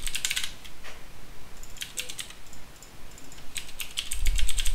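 Computer keyboard typing in three short bursts of key clicks.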